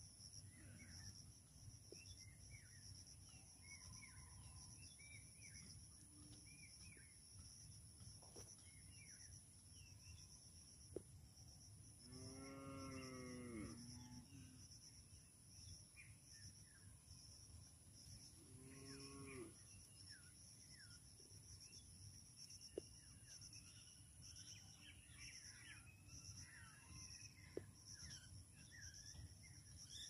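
A cow mooing twice, a long moo about twelve seconds in and a shorter one a few seconds later, over steady high insect trilling and scattered short bird chirps.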